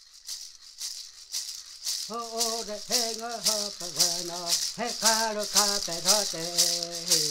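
Music: a rattle shaken in a steady beat, about two shakes a second, joined about two seconds in by a voice singing short repeated phrases.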